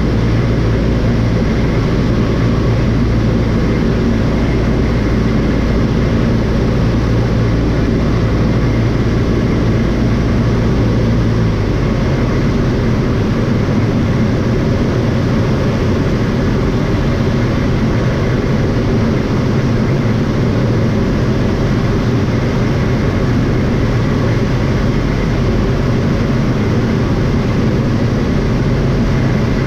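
Light airplane's piston engine running steadily with a propeller drone; its low-pitched note shifts slightly about eleven seconds in, and then runs on steadily.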